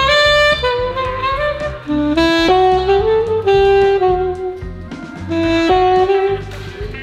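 Alto saxophone playing a slow melody of held notes, a few of them bent into pitch.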